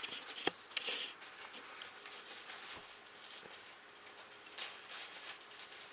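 Light rustling and scratching with a few small clicks as statue parts and packaging are handled and unpacked.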